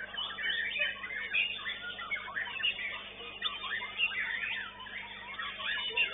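White-rumped shama (murai batu) and other caged contest songbirds singing together: a dense, unbroken run of quick whistled phrases and chirps.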